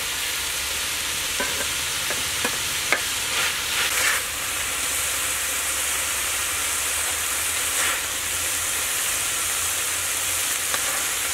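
Stir-fried eel and greens sizzling in a wok, with a metal spatula scraping and clinking against the pan a few times in the first four seconds. After that the sizzling runs on steadily.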